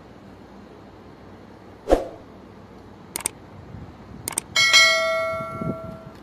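A few light knocks as pieces of chicken tikka are set on a steel serving platter, then a sharp clang near the end, the metal ringing on like a bell and fading over about a second and a half.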